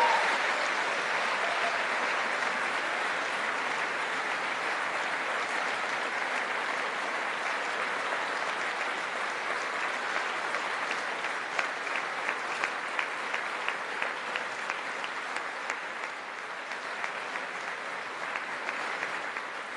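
Large audience applauding steadily, loudest at the very start. Single sharp claps stand out about halfway through, and the applause thins slightly near the end.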